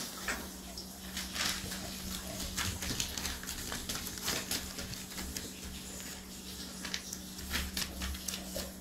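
Dog moving about in a wire crate: irregular scratches and taps of claws on the crate floor and bedding, over a steady low hum.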